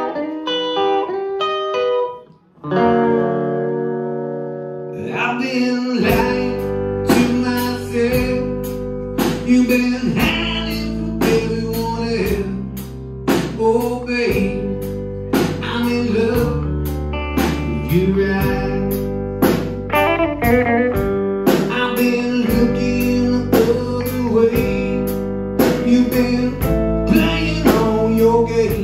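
A live band starts a song. An electric guitar first picks notes alone, then plays held chords. About six seconds in, drums and bass guitar come in and the band plays on at a steady beat.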